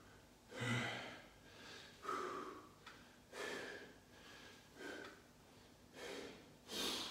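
A man breathing with effort while doing barbell deadlift reps, a faint breath in or out about every second.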